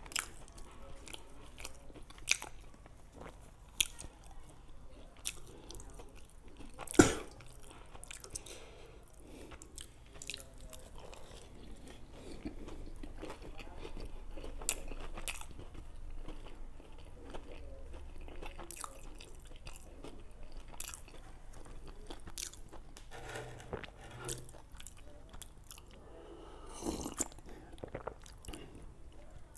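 A person biting and chewing homemade donuts, with many small sharp mouth clicks. A single loud sharp knock about seven seconds in.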